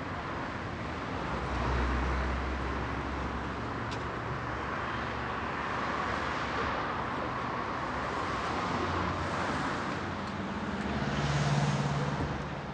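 Street traffic: a steady hum of road noise, with a car passing about two seconds in and another, louder one with an audible engine near the end.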